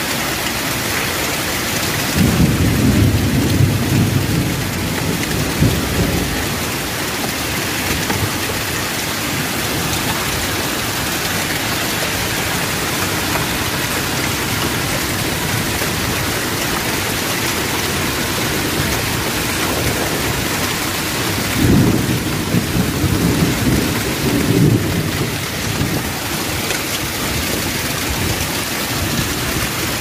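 Hail and rain falling steadily in a storm, a dense even hiss. Two spells of low, choppy rumbling, each about four seconds long, come about two seconds in and again about twenty-two seconds in.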